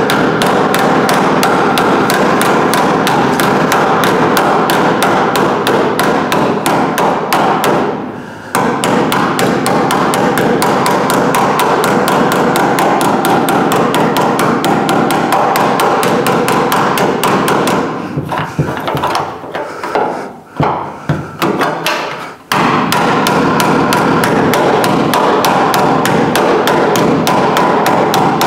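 Small hammer tapping rapidly and evenly on a sheet-metal patch panel, the metal ringing with each blow, stretching a bowl shape into the panel. The blows break off briefly about eight seconds in and turn irregular for a few seconds around twenty seconds in.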